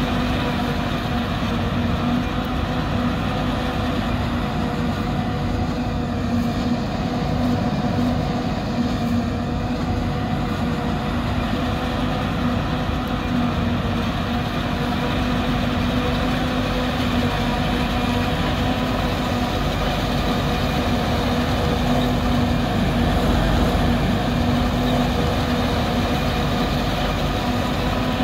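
New Holland 2100 forage harvester and International 1066 tractor running steadily under load while chopping corn. The diesel engines and cutterhead make a continuous rumble with a fixed-pitch hum.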